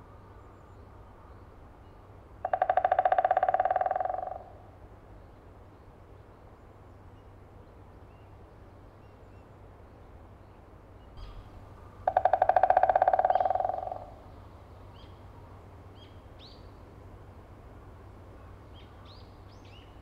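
White-backed woodpecker drumming its bill on a tree: two rapid rolls about ten seconds apart, each about two seconds long and fading toward the end. This is advertising drumming, a woodpecker's signal to attract a female.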